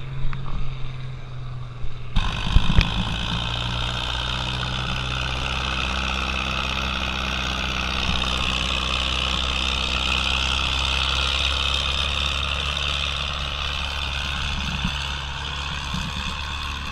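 Vintage Farmall tractor's engine running steadily under load while pulling a weight-transfer sled down the pull track. Before this, for the first two seconds or so, there is a different low hum.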